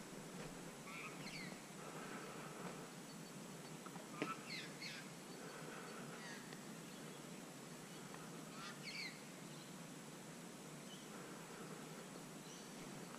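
Faint bird calls in bushland: scattered short chirps and quick up-and-down whistles, the loudest about four seconds in and another pair near nine seconds, over a steady faint hiss.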